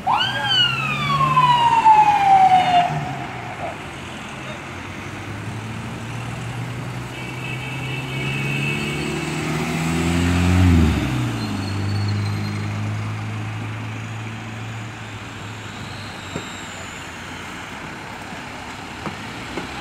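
An ambulance siren rises quickly and then falls away over about three seconds before cutting off. Street traffic follows: car engines pass, and one vehicle goes by louder about ten seconds in.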